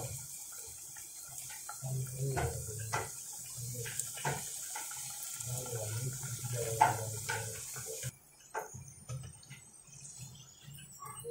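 Veg phaley deep-frying in hot oil in an aluminium kadai: a steady sizzle, with a few clicks of a wooden spatula against the pan. The sizzle drops away sharply about eight seconds in.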